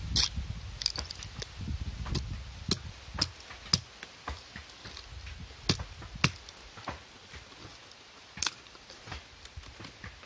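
Machete blade chopping and shaving a wooden stick: irregular sharp chops, a handful of louder strikes scattered among quieter taps and scrapes.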